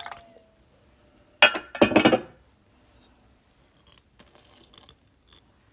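Hard kitchenware clinking: a light clink that rings on briefly, then two loud ringing clinks about half a second apart, followed by a few faint knocks.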